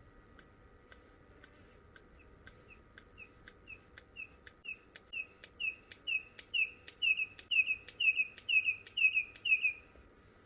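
Red-crested korhaan calling: faint regular ticks give way to a long series of piping whistled notes that grow steadily louder, the last ones doubled, then stop suddenly. A territorial call announcing that the bird holds this spot.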